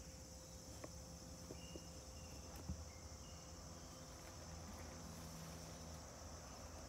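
Faint, steady outdoor insect chorus with a few brief high chirps. A soft knock comes a little under halfway through.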